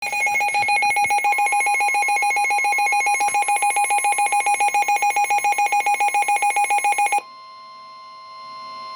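A weather alert radio's alarm beeping rapidly, about seven beeps a second, and cutting off about seven seconds in. Under it a steady warning alarm tone starts about a second in and carries on alone after the beeping stops: the signal that a severe thunderstorm warning is about to be broadcast.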